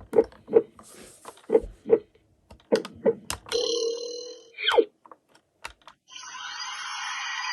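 Small toy ambulances clacking and knocking against each other and a box as they are handled, a dozen or so irregular taps. About halfway through, a short held tone ends in a quick falling sweep. From about six seconds in comes a steady buzzing rush.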